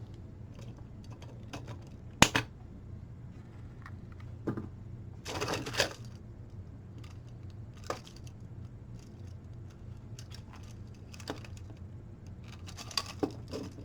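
Sharp snips and clicks of cutters trimming the pins off 3D-printed plastic track links, a handful of cuts at irregular intervals, with a short rustle of plastic parts being handled near the middle.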